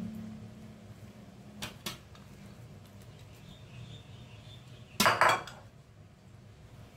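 Metal utensil knocking against a stainless steel tray: two light knocks about two seconds in, then a louder double knock about five seconds in.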